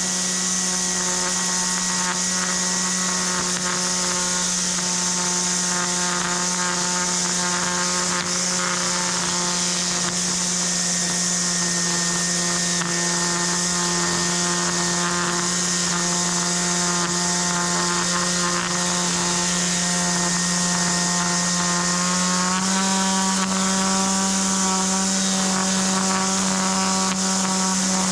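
A small motor, as in a power tool, running at a steady speed, its pitch stepping up slightly about 22 seconds in.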